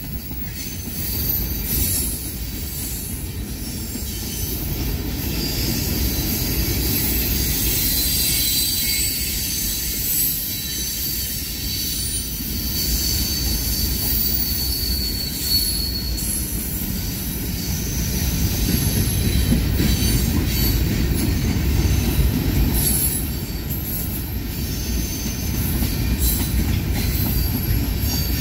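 Covered hopper cars of a freight train rolling past: a steady low rumble of steel wheels on rail, with thin high-pitched wheel squeal that comes and goes.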